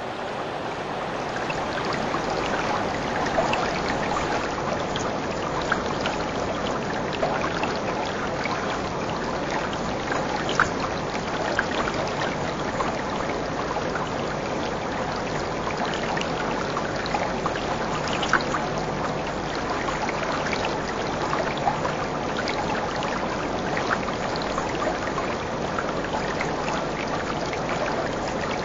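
Steady trickling, bubbling water with many faint little pops scattered through it.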